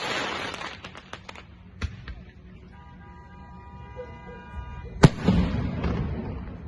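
Aerial fireworks shells bursting: a crackling burst at the start, a sharp bang near 2 s, and a loud report about 5 s in, followed by a rumbling, crackling echo.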